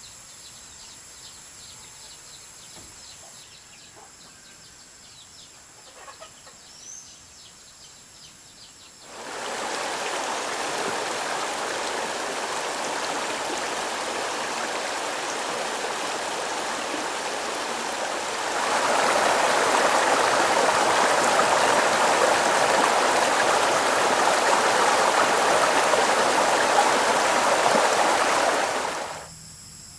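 Running water, a steady rush that comes on suddenly about nine seconds in, grows louder about halfway through and cuts off sharply near the end. Before it there is a steady chirring chorus of crickets with a few bird chirps.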